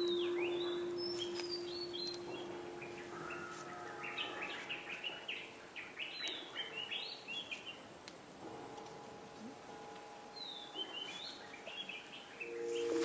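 Birds chirping and calling in quick, repeated short notes in woodland. Under them, a single ringing musical tone that was struck just before slowly fades away over the first few seconds.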